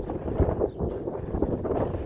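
Wind buffeting the microphone: a loud, uneven rumble with irregular gusts.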